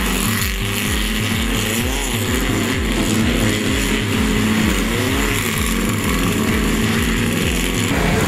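Air-cooled Volkswagen Beetle race car engines revving, pitch rising and falling as the cars slide around a dirt track. A steady low rhythmic pulse runs underneath throughout.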